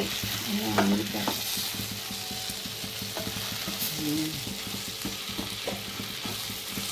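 Chopped onions and tomatoes sizzling in oil in a stainless steel kadai, stirred and scraped around the pan with a wooden spatula.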